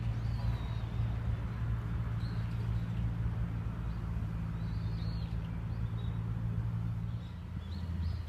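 A low steady engine hum of traffic, its pitch shifting about seven seconds in, with short faint bird chirps now and then.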